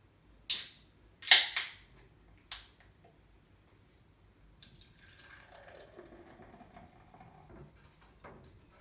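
Sapporo aluminium beer can opened: sharp cracks and hiss from the pull tab in the first few seconds. From about halfway to near the end, beer pours and gurgles into a glass mug.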